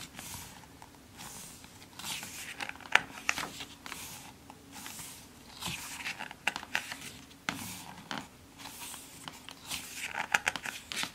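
Pages of a thick glossy photobook turned by hand, a papery rustle and flap with each turn every few seconds, with small sharp clicks of fingers on the paper.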